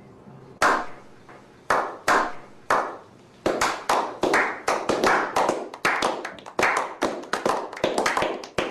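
A slow clap by a few people: single hand claps about a second apart, each echoing briefly, then from about three and a half seconds in more hands join and the claps come quicker and overlap.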